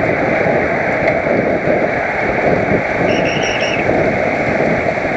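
Wind rushing over a helmet-mounted camera's microphone on a road bike at racing speed: loud and steady.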